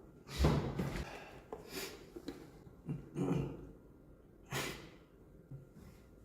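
A man's sniffles and breaths: four short nasal and breathing sounds about a second and a half apart, the first the loudest.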